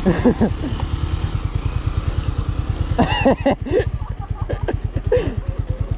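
A 200 cc single-cylinder motorcycle engine running at low revs with a steady, rapid putter of about ten beats a second. Short voice-like calls break in over it a few times.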